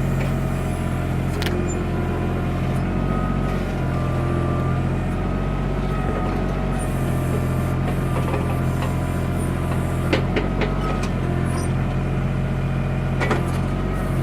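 Backhoe engine running steadily under load, with a few sharp knocks about a second in, around ten seconds in and near the end.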